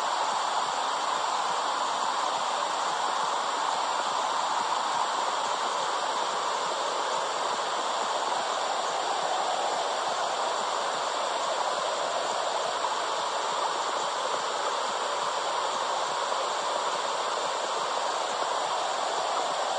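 Steady rushing noise, like running water, presented as a mother's womb sound for calming babies. It holds even throughout, with no heartbeat pulse or other rhythm.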